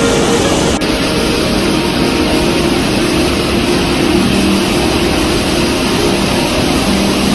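Waterfall in a mountain gorge: a steady, loud roar of falling and rushing water.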